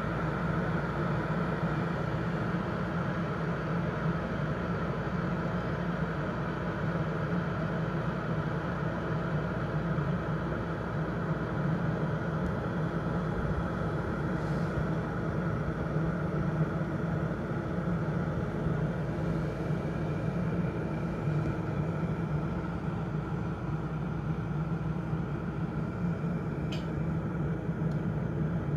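Electric kettle heating water toward the boil: a steady rushing noise with a low hum underneath.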